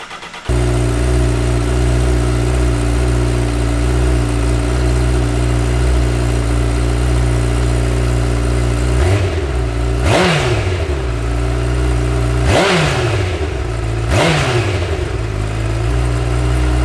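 A 2017 Honda CBR1000RR SP's inline-four engine running through its stock exhaust. It idles steadily, then in the second half it is blipped several times, the pitch rising quickly and falling back to idle each time.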